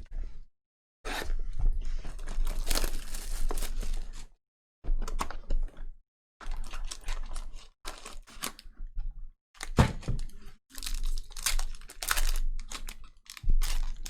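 Trading card pack wrappers being torn open and crinkled as the cards are handled, in about six bursts of tearing and rustling with short silent gaps between.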